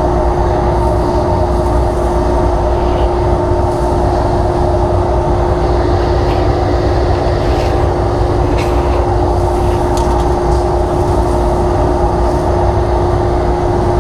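Dust collector running with a steady hum and rumble, with scattered faint ticks as sawdust and debris are sucked out of the table saw cabinet and through the duct.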